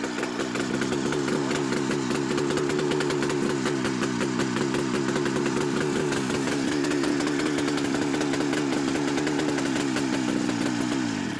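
Buran snowmobile's RMZ-640 two-cylinder two-stroke engine running steadily, then dying near the end as it is killed by shorting the ignition commutator's terminals with a screwdriver.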